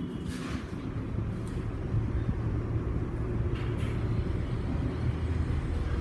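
A steady low rumble, with a few short rustles of something being handled about half a second, one and a half seconds and nearly four seconds in.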